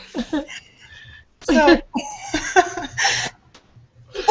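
Women laughing over a video call, in several short bursts with quiet gaps between them.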